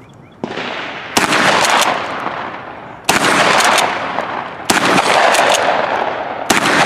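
12-gauge pump-action shotgun (Mossberg 500) firing slugs: a lighter bang about half a second in, then four loud shots roughly one and a half to two seconds apart, each trailing a long echo.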